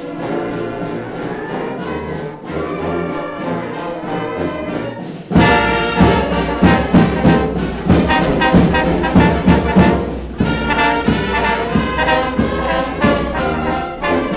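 Brass band music: a softer passage of held brass chords, then about five seconds in a sudden louder, fuller passage with a strong regular beat of strikes under the brass.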